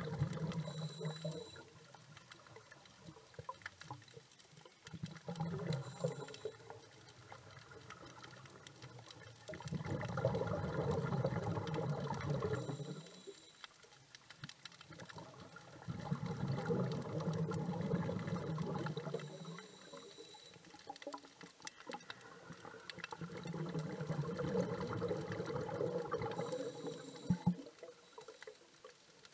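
A scuba diver breathing through an open-circuit regulator underwater, in a slow cycle of about one breath every six to seven seconds. Each exhalation is a few seconds of bubbling and each inhalation a short high hiss.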